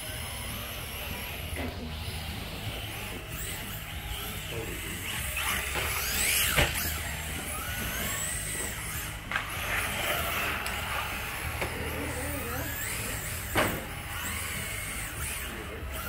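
Electric RC drift cars running on the track, their motors whining up and down in pitch as the throttle is worked. Two sharp knocks stand out, the first about six seconds in and the second near the end.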